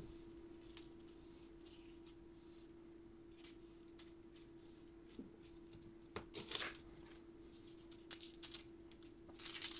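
Faint, scattered scrapes of a hand peeler on a raw potato, over a steady low hum.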